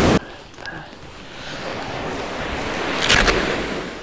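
Surf breaking on the shore, an even rushing that swells over a couple of seconds. Near the end, brief close rustling and clicks.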